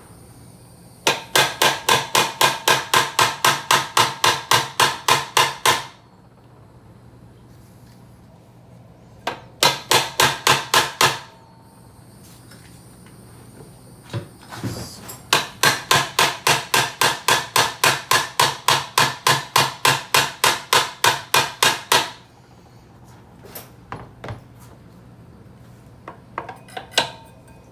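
Hammer striking a pin punch to drive a roll pin through a SerialNine shifter shaft: three runs of quick ringing metal-on-metal strikes, about four a second, with a few lighter taps near the end.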